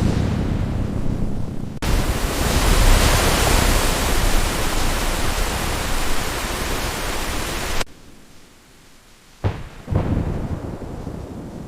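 Thunderstorm: a dense rush of heavy rain and wind that swells louder about two seconds in and cuts off abruptly past the middle, then two sudden thunder cracks about half a second apart, the second fading away.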